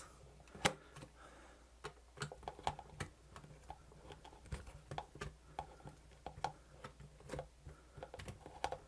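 Irregular light clicks and taps of a screwdriver working small self-tapping screws out of a camcorder's plastic housing, and of the plastic parts being handled.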